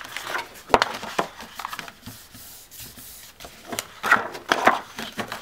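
Hands rubbing and smoothing glued paper down onto a paper bag and shifting the sheets about, giving soft paper rustles and scattered light taps, with one sharp tap just under a second in.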